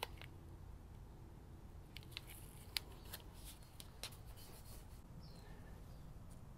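Faint, scattered clicks and taps from hands working a strip of tape and a tape measure on a steel ramp, over low background noise. A short high chirp comes about five seconds in.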